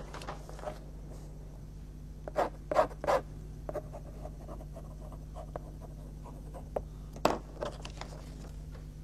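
Fountain pen nib scratching across paper in short strokes, the loudest a quick run of three about two and a half to three seconds in, and another about seven seconds in, over a low steady hum.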